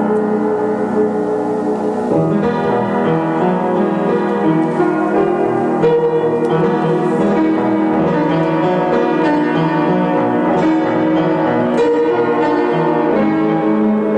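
A keyboard instrument played solo: sustained chords with a melody over them, the harmony changing about every two to four seconds.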